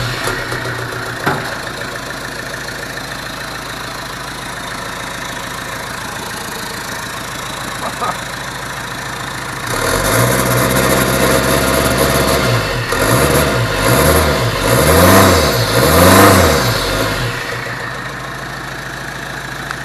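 Turbocharged Peugeot HDi diesel engine running on an early test start after being fitted: it idles quietly, picks up noticeably about halfway through, and is then revved about four times in quick rising-and-falling blips before dropping back to idle.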